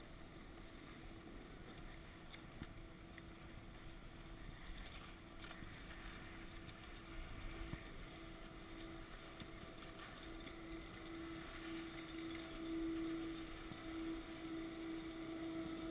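Skis sliding over snow with wind on the microphone, under a steady machine hum from a chairlift terminal's drive that grows louder toward the end.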